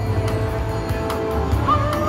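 Timber Wolf Deluxe slot machine playing its electronic game music: held tones, one stepping up in pitch near the end, over a steady low hum.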